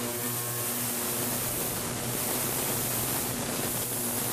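Morantz M-115 "Mighty One" ultrasonic cleaning tank running after being switched on: a steady hiss of cavitation in the cleaning solution, with a low electrical hum underneath.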